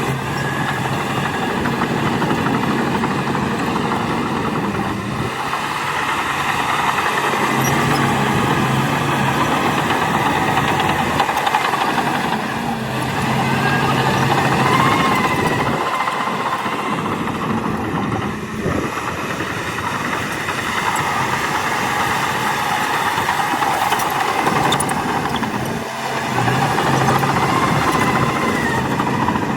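Shantui DH17 C2 crawler bulldozer working: its diesel engine runs under changing load, with track and machinery clatter. A high whine rises and falls about halfway through and again near the end.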